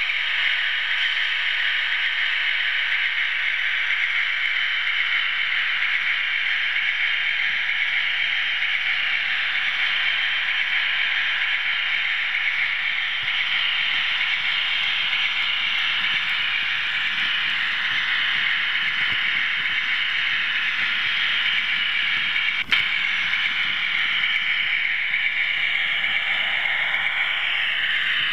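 OO-gauge model train running steadily, a continuous whirring rattle of its motor, gears and wheels on the track, heard from on board the moving train. A single sharp click comes near the end.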